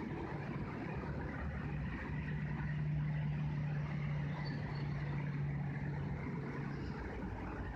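Honey bees buzzing at the hive entrance: a steady low drone over a hum of many bees, strongest through the middle and easing off near the end.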